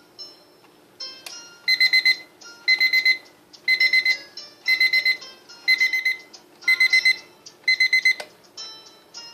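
BS 2075 alarm clock's electronic alarm beeping in quick groups of four, about one group a second, seven groups in all, stopping about eight seconds in. A tinkly electronic melody plays alongside.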